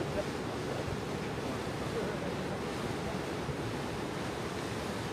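Steady rush of wind and water aboard a boat under way on a river, with wind buffeting the microphone.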